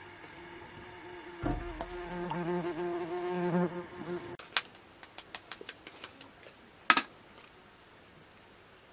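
Insect buzzing, its hum wavering in pitch and swelling for a couple of seconds before cutting off suddenly a little before the middle. Then scattered light clicks and one sharper tap.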